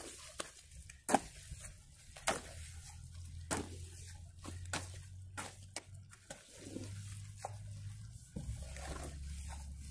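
Flat-bladed hoe chopping and scraping through wet clay mud being mixed for bricks, with a squelching stroke every second or so. A low steady hum runs underneath.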